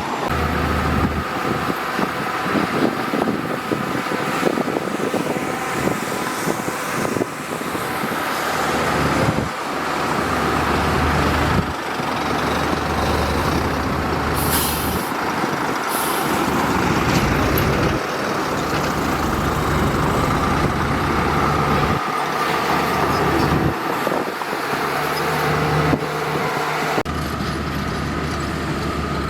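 Heavy diesel earthmoving machinery, bulldozer and dump truck, running under load, with short bursts of air hiss about halfway through.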